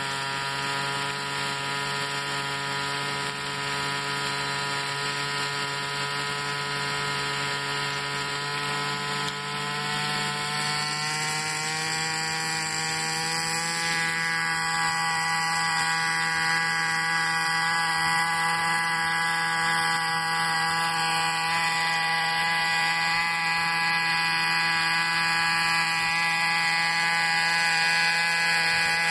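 Gasoline engine of a Goblin 630 RC helicopter running with its rotor spinning on the ground: a steady high whine with many overtones. The pitch rises over a few seconds about a third of the way in as the rotor spools up, then holds higher while the sound slowly grows louder.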